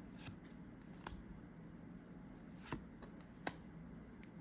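Trading cards being handled and flipped through, with about five faint, irregularly spaced card clicks over a quiet room.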